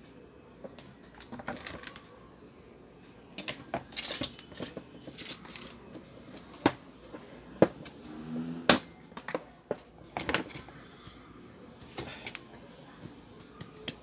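Irregular clicks and light knocks of a box fan's plastic motor housing and small metal parts being handled, sharpest about seven and nine seconds in.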